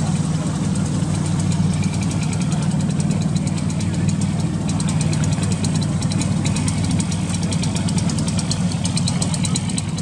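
An engine idling steadily, with a fine rapid ticking over it.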